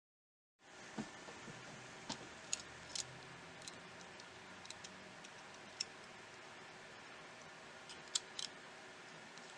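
After a brief moment of dead silence, faint steady hiss with about a dozen small, sharp clicks and taps at irregular intervals. A close pair of the loudest clicks comes near the end. These are small tools and phone parts being handled during a smartphone reassembly.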